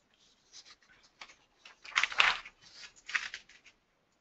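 Faint scattered rustles and clicks, with the loudest rustle about two seconds in and another just after three seconds.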